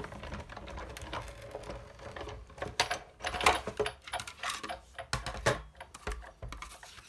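Hand-cranked Sizzix Big Shot die-cutting machine feeding the plate sandwich through its rollers, then the plastic cutting plates clacking as they are lifted out: a run of irregular clicks and knocks.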